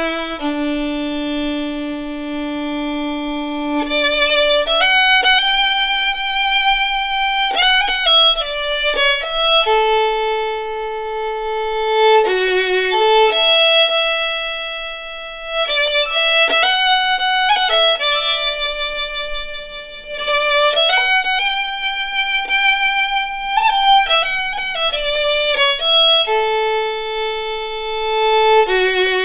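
Solo fiddle playing a slow melody one note at a time, with long held notes and slides between them.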